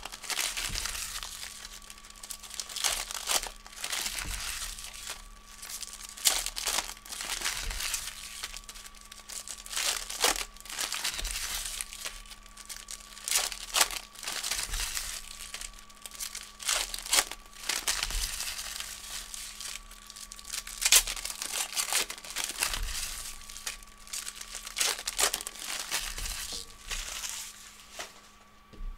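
Foil wrappers of trading-card packs being torn open and crumpled by hand: a continuous crinkling full of sharp crackles, which stops shortly before the end. A faint steady electrical hum runs underneath.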